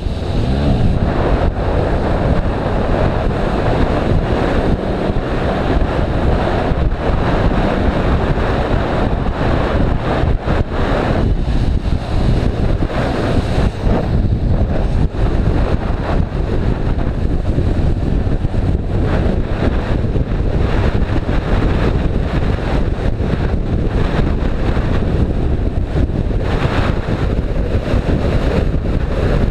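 Loud, steady rush of wind buffeting the microphone, as when riding at speed.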